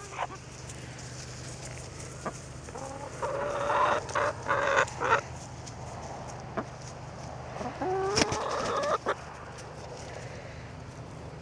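Hens clucking and squawking in two bouts, about three to five seconds in and again around eight to nine seconds, with a few sharp clicks between.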